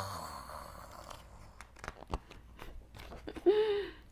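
Picture-book page being turned: soft paper rustling with scattered sharp crackles and clicks. It opens with the tail of a breathy, falling sigh and ends with a short hummed vocal sound, the loudest moment.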